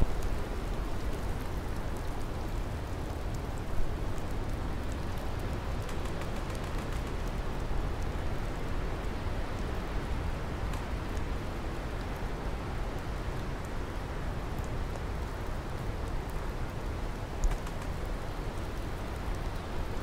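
Steady rainfall, an even hiss of countless drops, with two brief louder hits about four seconds in and near the end.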